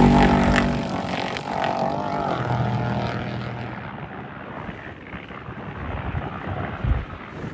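High-revving engine of an off-road race vehicle going by at speed, its note wavering and then fading away over the first few seconds. Wind rumble on the microphone is left, with a gust thump near the end.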